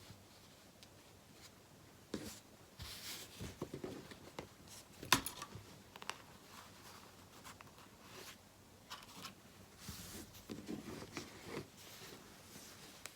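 Hand-stitching with embroidery thread: the thread drawn through fabric in short rustling pulls in two spells, with light handling clicks and one sharper click about five seconds in.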